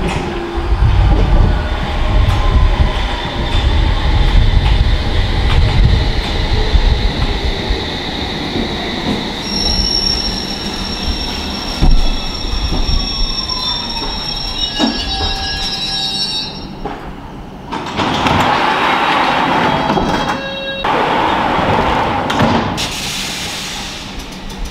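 London Underground S Stock train arriving and braking to a stop at the platform: a heavy rumble of wheels on the track with a whine falling in pitch as it slows, then a steady high-pitched brake squeal. Once it has stopped there are a few bursts of hissing.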